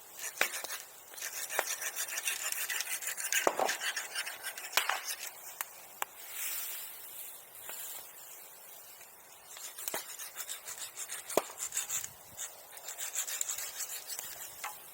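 Hand saw cutting wood in fast, even rasping strokes, in two spells with a pause between, with a few sharp cracks scattered through.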